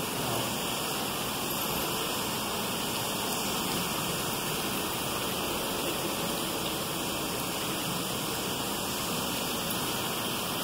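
Steady, even rush of falling water, with no breaks or separate sounds.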